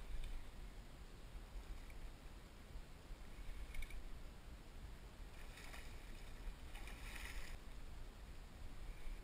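Water splashing at the surface where a rigged eel is being retrieved and a swirl breaks around it: a brief splash about four seconds in, then two short splashy bursts in the second half, over a faint steady low rumble.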